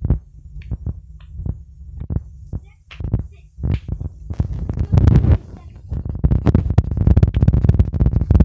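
Handling noise on a phone's microphone as the person carrying it walks quickly: a low rumble with rubbing and knocks that come thick and fast in the second half.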